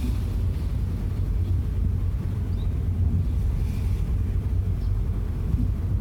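Steady low rumble of a 2013 Hyundai car in motion, from road and running noise, with no distinct brake squeal or groan standing out.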